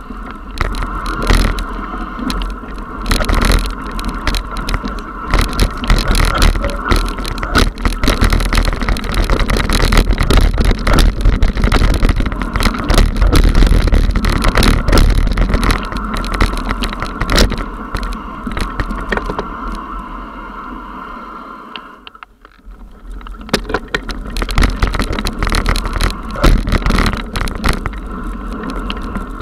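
Mountain bike descending a rough dirt trail, heard from a camera mounted on the bike: constant rattling and knocking as the bike and mount jolt over stones and roots, over tyre noise on loose dirt and a low wind rumble. It goes briefly quieter about three-quarters of the way through, then the rattling picks up again.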